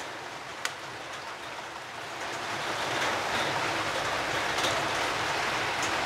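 Steady rain-like hiss that grows a little louder about two and a half seconds in, with a few faint clicks.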